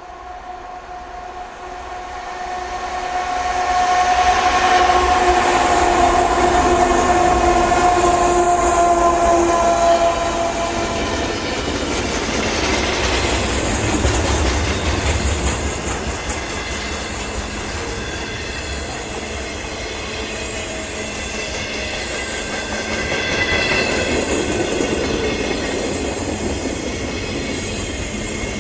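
Freight train approaching and passing close by, its locomotive horn sounding a long chord for about ten seconds that dips slightly in pitch as it goes by. The horn is followed by a steady rumble and clickety-clack of the cars rolling past, with brief wheel squeal later on.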